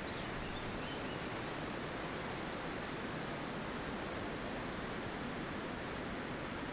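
Steady wind rushing through forest trees, an even, unbroken rustling hiss.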